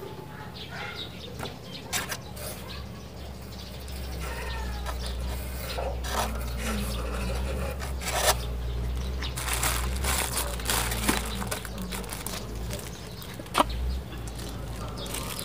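Handling noise while a person climbs with a phone in hand: rubbing and scraping of clothing and hands, scattered sharp knocks against wood, and a low rumble. Faint bird calls sound in the background.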